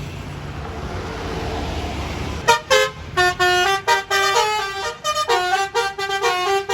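A bus passes with a low engine rumble. About two and a half seconds in, its telolet horn, a multi-tone musical air horn, starts playing a melody of short stepped notes, then cuts off sharply near the end.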